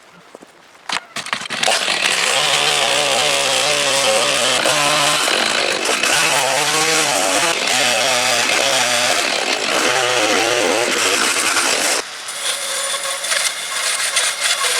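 Home-built horizontal bandsaw mill, driven by an electric motor, sawing through a linden log. After a click about a second in comes a loud, steady sawing noise with a wavering whine. About twelve seconds in it drops to a quieter steady running.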